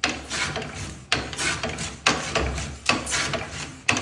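Barnes foot-powered tenoning machine cutting a tenon, its top and bottom cutters shaving the wood on each treadle stroke, about one stroke a second. Each stroke is a sharp clack followed by a short shaving hiss.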